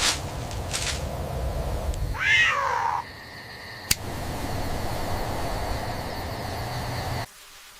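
A kitten meows once, a short call that falls in pitch, about two seconds in, with a few sharp clicks around it over a steady background hiss and hum that cuts off abruptly near the end.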